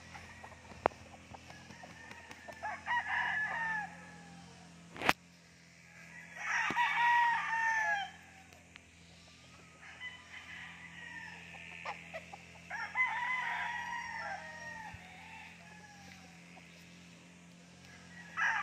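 Gamecocks crowing in turn, about four or five separate crows a few seconds apart, some close and some farther off. A single sharp click about five seconds in.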